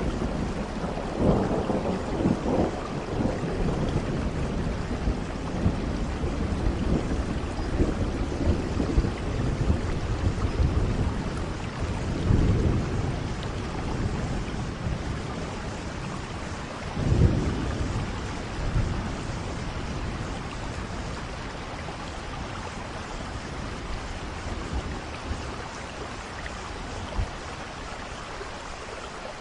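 Steady rain with low rolling rumbles of thunder. The rumbles swell a little after the start, about twelve seconds in and again about seventeen seconds in, and the whole sound slowly fades toward the end.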